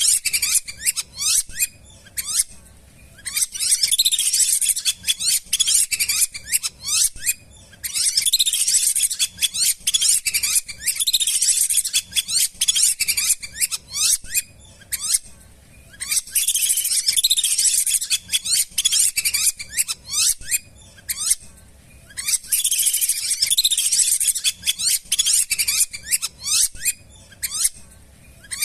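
Lesser whistling ducks calling: rapid runs of high, shrill whistles from several birds at once. The calls come in bouts of a few seconds, broken by short pauses.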